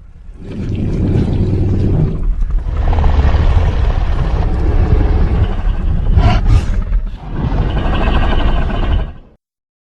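Ultimasaurus dinosaur sound effect: a long, deep rumbling growl that swells up over the first second, dips briefly about seven seconds in, then stops shortly before the end.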